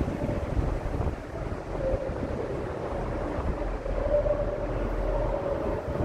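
Wind buffeting the microphone on an open high-rise rooftop: a gusty low rumble with a faint wavering tone running through it.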